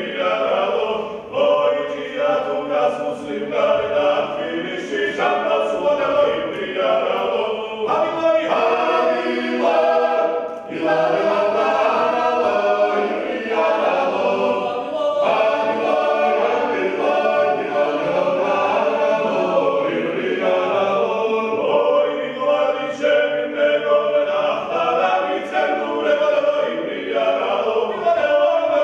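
Choir singing a Georgian folk song, several voices sounding together without a break.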